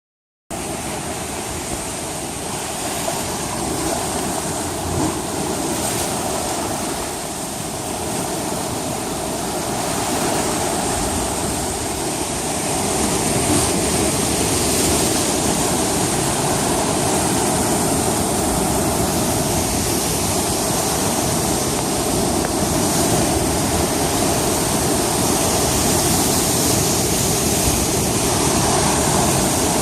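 Heavy sea waves surging and breaking, a continuous rushing that grows a little louder after about twelve seconds, with a steady hum underneath.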